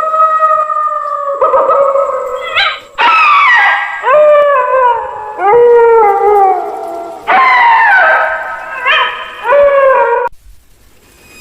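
Dog howling: a run of long howls, several sliding down in pitch, that break off about ten seconds in.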